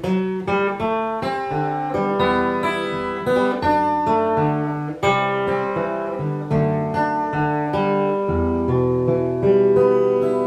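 Gibson Hummingbird acoustic guitar played solo, picked note by note over bass notes in the closing instrumental of a minor-key blues. A final chord is struck near the end and left to ring.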